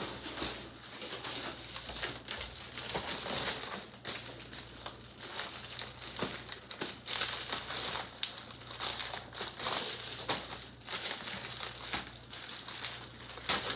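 Plastic shipping mailer and packaging crinkling and rustling in continuous irregular crackles as a package is opened and handled.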